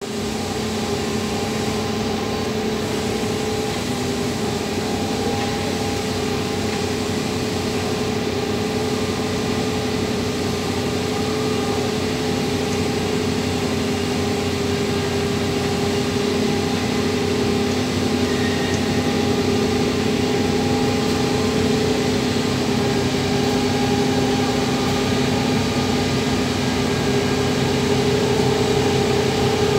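Multi-axle heavy-load transporter's engine and hydraulic drive running steadily as it slowly carries a large crane, a constant drone with a few held tones, growing slightly louder near the end as it comes closer.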